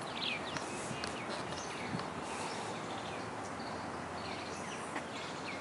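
Outdoor ambience: a steady background hiss with small birds chirping on and off.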